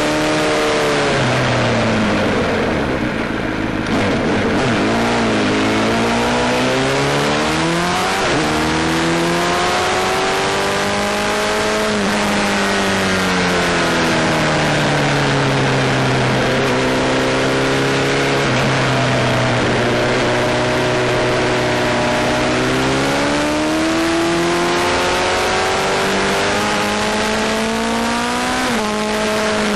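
Sport motorcycle engine heard from on board at track speed, with constant wind rush. The revs climb and fall several times, dropping into corners and rising out of them down the straights, and the engine holds steady in between.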